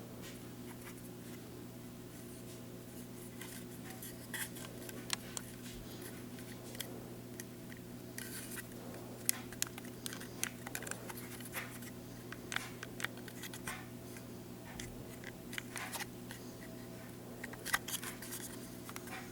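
Irregular small clicks and taps of something being handled, scattered through most of the stretch, over a steady low electrical hum.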